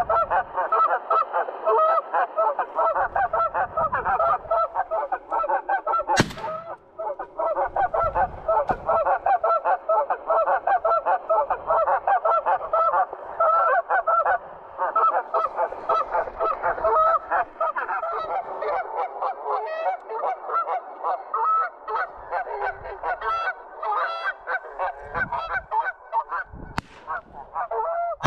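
Goose honking: a dense, unbroken run of short, rapid honks, with a single sharp click about six seconds in.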